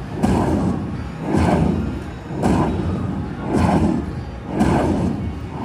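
Ultimate Fire Link slot machine playing its win sounds: a thumping beat that repeats about once a second, each beat fading before the next.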